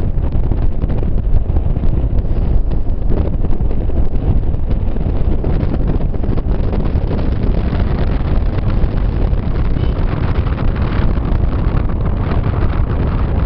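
Wind buffeting the microphone on a moving 200cc motorcycle, mixed with the bike's engine running at road speed: a loud, steady rush heaviest in the low end.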